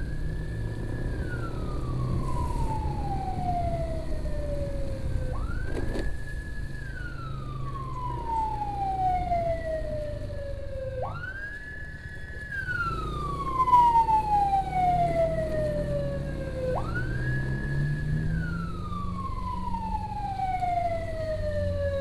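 Emergency siren wailing in a repeating cycle about every five and a half seconds: a quick rise to a high note, held for about a second, then a long slow fall. Under it runs the steady low rumble of a moving scooter with wind and road noise.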